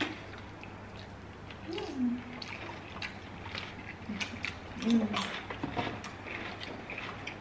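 Wet chewing and lip-smacking of two people eating, close to the microphone, with scattered small clicks and a couple of brief hummed 'mm's.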